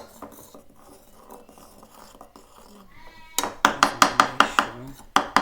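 A spoon rapidly clinking and knocking against a bowl while stirring thick, hot cornstarch paste, about four to five strikes a second, starting about three seconds in after a brief high squeak.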